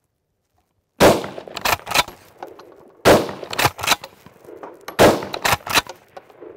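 Three rifle shots about two seconds apart from a Beretta BRX1 straight-pull rifle in 6.5 Creedmoor, fired from the shoulder, the first about a second in. After each shot come quieter clacks as the straight-pull bolt is cycled to chamber the next round.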